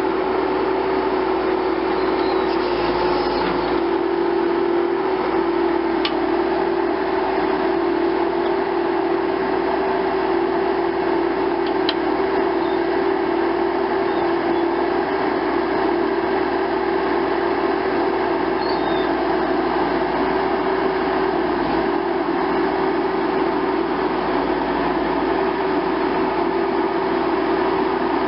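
A steady mechanical drone with a constant low hum running throughout, unchanging in level.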